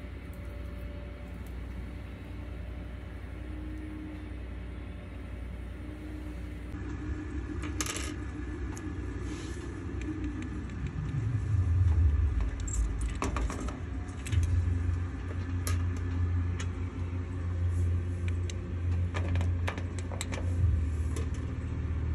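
Small hard clicks and clinks of clear acrylic pins being handled and pushed into the slots of an acrylic pegboard panel, in scattered groups. A low rumble comes in about halfway and is the loudest sound.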